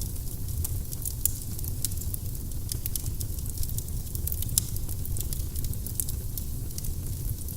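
Firewood burning in a fireplace, with many irregular sharp crackles and pops over a low steady rumble.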